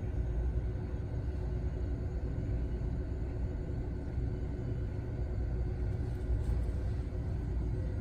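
Low, continuous rumbling of thunder from a storm with frequent lightning, rising and falling slightly without a break. A faint steady hum runs underneath.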